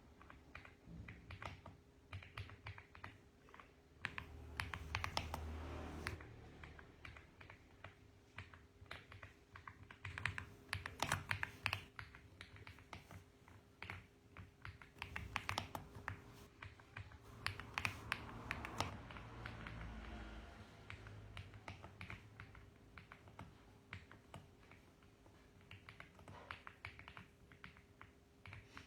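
Mechanical keyboard keys clacking in quick runs of typing, with short pauses between bursts, over a faint steady hum.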